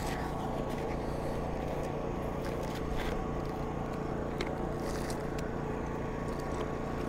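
A steady mechanical hum at a constant pitch, engine-like, with a few light clicks over it.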